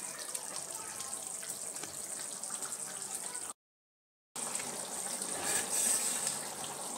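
Lauki kofta curry gravy simmering in a steel kadhai, a steady bubbling hiss. The sound cuts out completely for under a second about halfway through.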